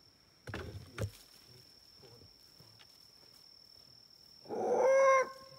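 Insects trilling on one steady high note, with two soft clicks about half a second and a second in. Near the end a loud pitched sound with a steady tone sounds for under a second.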